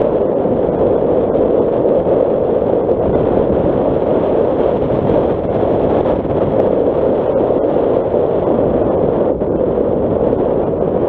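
Steady driving noise of a Nissan Qashqai on a gravel dirt track: tyres on loose stones and road rumble, mixed with wind on the camera microphone.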